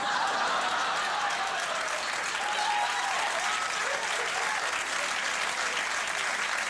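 Studio audience breaking into applause all at once and keeping it up steadily, with a few voices cheering through it, in reaction to a joke.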